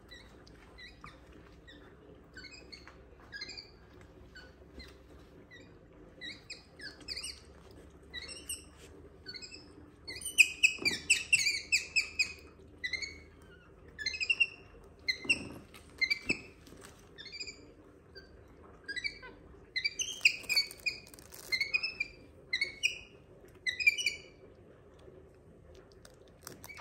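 Capuchin monkey chirping: many short, high, squeaky chirps that come in clusters, busiest about ten seconds in and again about twenty seconds in.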